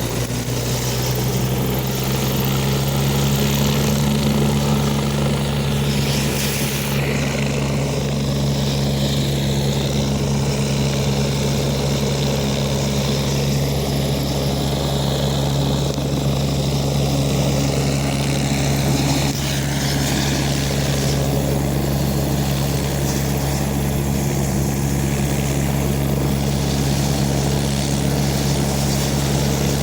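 Helicopter running steadily, rotor and engine giving a constant low drone.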